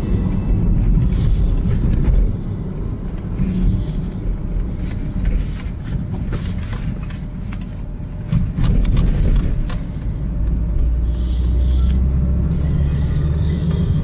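Car driving along a road, heard from inside the cabin: a steady low rumble of tyres and engine, with occasional small knocks.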